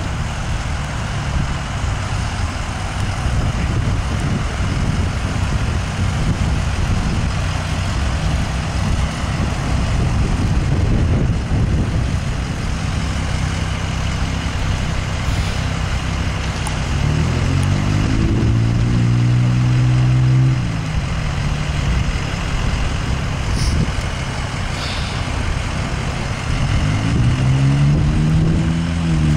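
A fire apparatus's engine idling steadily, then revving up about two-thirds of the way in, holding the higher speed for a few seconds and dropping back; near the end it revs up again and holds.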